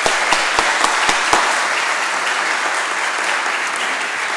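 Audience applauding steadily, with a few louder, close single claps in the first second and a half.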